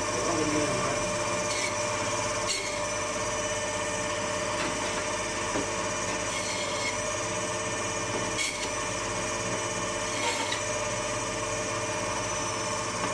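Meat band saw running steadily as its blade cuts through meat and bone, with a handful of brief, sharper scrapes.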